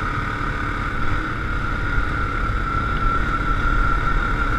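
Yamaha Grizzly 700 ATV riding along, its single-cylinder engine running steadily under a low rumble, with a steady high whine over it.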